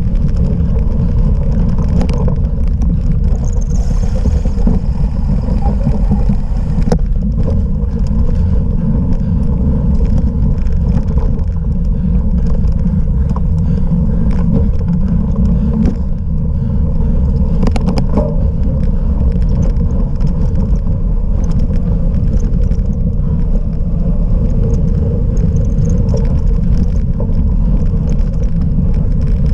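Cyclocross bike riding over rough ground: a loud, steady rumble of tyres and wind on the microphone, with scattered clicks and rattles.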